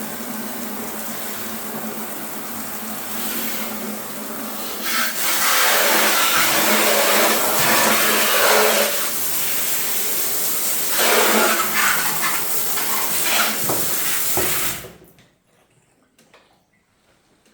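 Water running and splashing in a tub, swelling and easing in surges, then stopping abruptly about fifteen seconds in.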